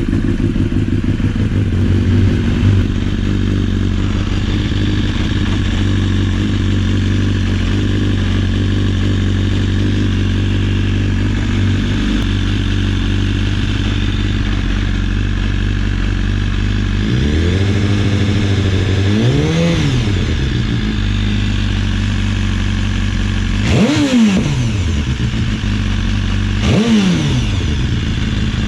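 BMW S 1000-series inline-four motorcycle engine idling just after start-up with a rattle, typical of a stretched cam chain that the tensioner no longer keeps tight. About two-thirds of the way in the revs rise and fall once, then two quick throttle blips follow near the end.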